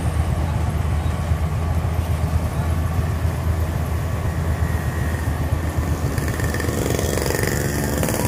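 Maxxi Bimo crawler rice combine harvester running, its diesel engine a steady low drone. The sound grows brighter, with more rattle and whine, near the end as the machine passes close by.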